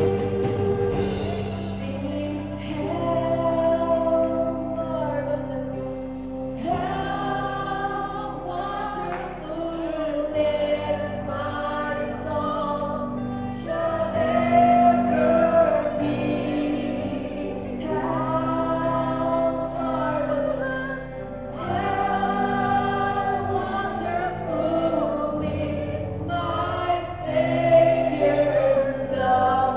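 Live church worship music: several voices singing a hymn together in long held phrases, with a worship band accompanying them.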